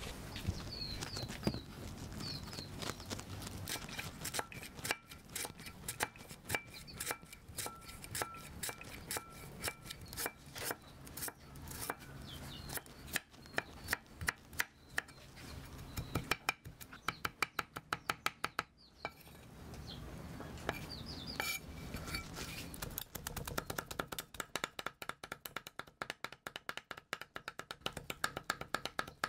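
Cleaver chopping rapidly on a thick wooden chopping block, a fast run of sharp knocks that starts a few seconds in. Birds chirp faintly early on.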